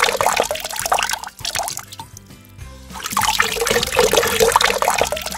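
Water poured from a glass measuring cup into a glass of ice cubes, splashing and trickling. The first pour stops about a second and a half in, and a second pour starts about three seconds in.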